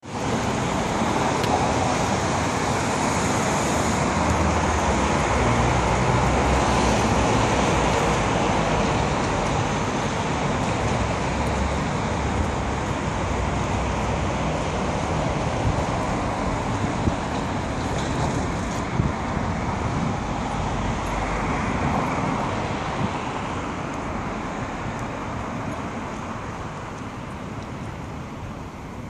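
Mercedes-Benz GL 63 AMG's V8 driving past amid street traffic, a steady loud rumble that eases off over the last several seconds.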